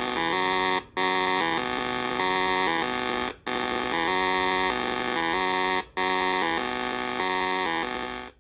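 Buzzy synthesizer melody, its notes stepping up and down in pitch, broken by a short gap about every two and a half seconds; it cuts off abruptly near the end.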